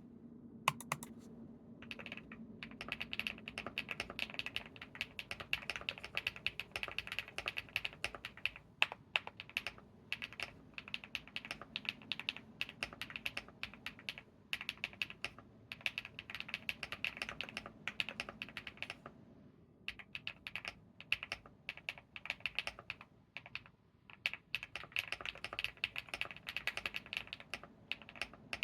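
Steady typing on an Epomaker x Feker Galaxy80 mechanical keyboard with lubed HMX Hyacinth v1 switches and dye-sub PBT keycaps: a dense run of clacky keystrokes with a marble or mahjong-tile sound. The typing starts about two seconds in and pauses briefly twice in the second half.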